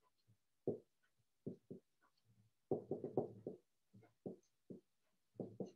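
Writing on a board: a series of short taps and strokes as numbers or dots are put down one after another, bunched closely about three seconds in.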